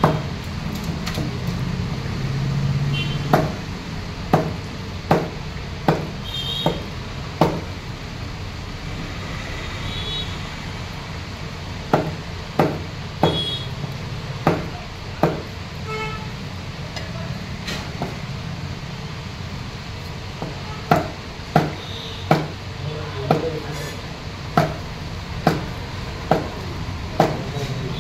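A heavy blade chopping snakehead fish flesh into chunks on a wooden log chopping block: sharp chops about one a second, in three runs, over a steady low background noise.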